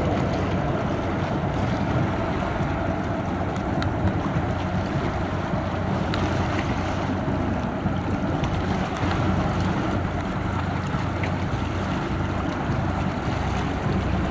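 Pusher tug's diesel engine running with a steady low hum as it pushes a barge, under the noise of wind on the microphone and water.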